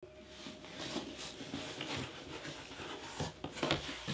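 Cardboard subscription box being handled and its lid and flaps opened: a series of cardboard rubbing and scraping rustles, the loudest about three and a half seconds in.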